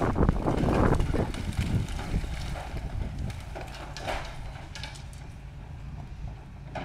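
Excavator with a demolition grapple tearing into a brick house wall: a loud rumble of crumbling masonry and falling debris for about the first two seconds, then scattered knocks of rubble over the excavator's steady engine.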